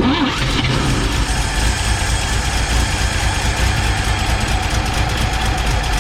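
The 1954 Chevrolet 3100's inline-six being cranked over by its starter, choke held out, for a long steady attempt at a start after years of sitting. It starts suddenly and keeps going at an even level.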